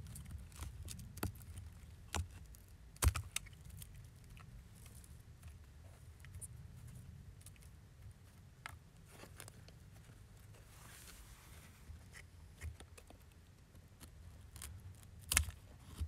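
Knife blade scraping down a split stick of wood to raise fine scrapings for fire starting: short, irregular scrapes and light clicks, with sharper knocks about two and three seconds in and near the end.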